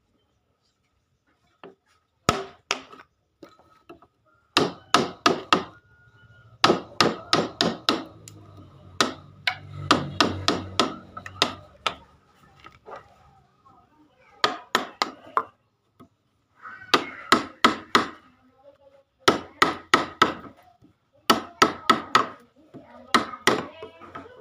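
Hand hammer blows on wood, struck in quick bursts of about four or five with short pauses between them.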